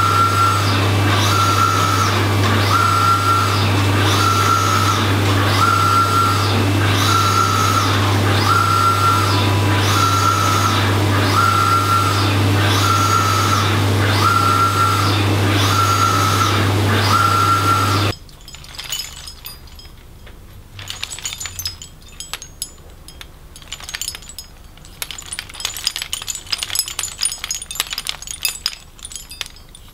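Large flatbed printer running: a steady low hum with a whirring pass that repeats about every second and a half as the print-head carriage sweeps back and forth. The sound cuts off abruptly about two-thirds of the way through, leaving only faint scattered clicks and taps.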